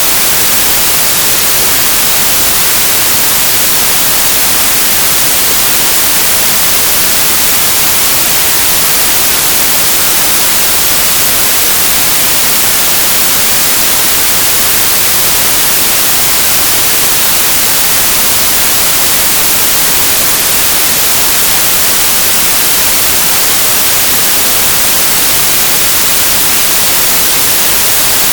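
Steady synthesized white noise: an even, bright hiss with no change.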